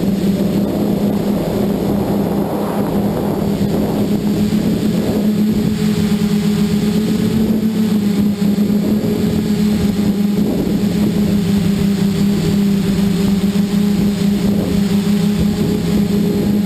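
Scorpion Y6 multicopter's six electric motors and propellers (three arms with coaxial motor pairs) running steadily as it hovers, heard close up from the camera on board: a loud, even hum whose pitch wavers slightly.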